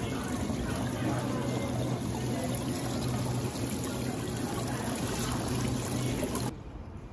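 Water trickling and splashing in live crab tanks, over a steady low hum. The sound stops abruptly near the end.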